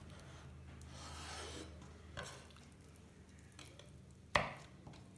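Kitchen knife slicing soft roasted red pepper on a bamboo cutting board: faint rubbing and scraping of the blade against the board. A light tap comes about two seconds in, and a single sharp knock on the board a little after four seconds.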